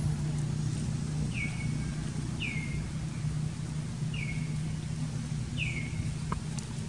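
A bird giving four short calls, each sliding quickly down in pitch and then levelling off, a second or so apart, over a steady low rumble.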